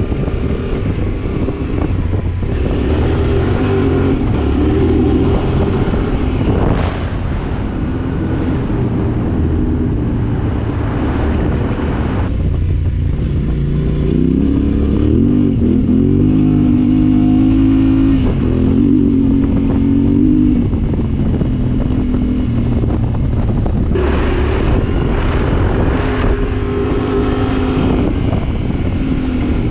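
Yamaha Ténéré 700's parallel-twin engine running under way at trail speed, with road and wind noise. A little under halfway through, the engine note climbs as the revs rise, then holds steady.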